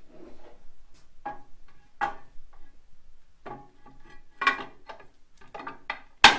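Metal parts of a chuck-handling cradle being picked up and set in place: irregular knocks and clanks with short ringing, a louder clank about four and a half seconds in and a sharp bang near the end.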